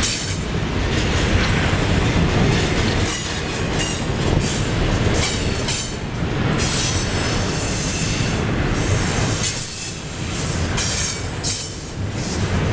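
Double-stack intermodal well cars of a freight train rolling past at close range: a steady rumble of steel wheels on rail, with high-pitched wheel squeal rising and fading several times.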